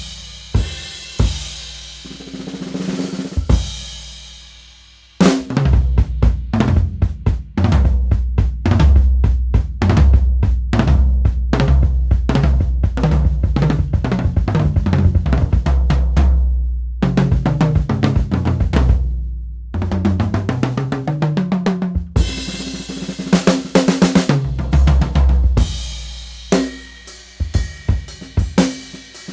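A 1980s Saema Hexa drum kit being played: bass drum, snare, toms and cymbals. A crash rings out and fades about four seconds in, then a busy groove with tom fills picks up and runs on with hi-hat and cymbal strikes.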